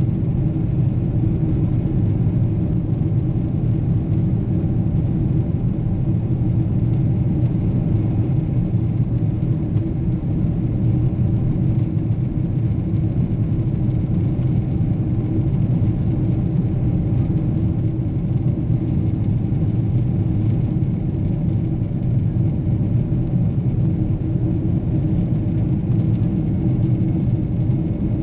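Steady low drone of a Boeing 777 airliner heard from inside the cabin: jet engines and airflow running at an even setting, with a faint steady hum over the rumble.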